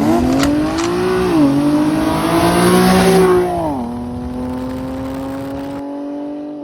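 A car engine accelerating: its pitch climbs and drops sharply at two gear changes, then holds steady and fades out at the end.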